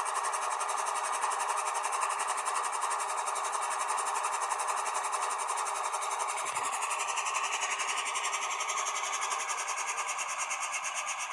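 HO scale GE AC44C6M model locomotive's onboard sound decoder playing a steady diesel engine sound through its small speaker, with a fine, even rhythm.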